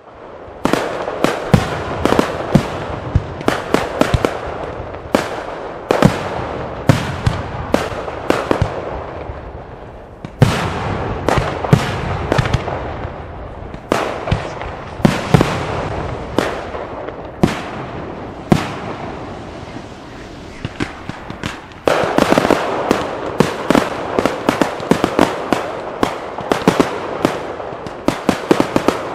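Finale of an aerial firework display: rapid bangs of bursting shells, several a second, over continuous crackling. The volley swells afresh about half a second in, again about ten seconds in, and again about twenty-two seconds in.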